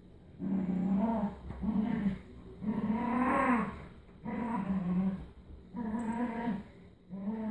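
A dog growling in play during a tug-of-war over a rope toy. It is a string of about six drawn-out growls, each half a second to a second long, with short pauses between.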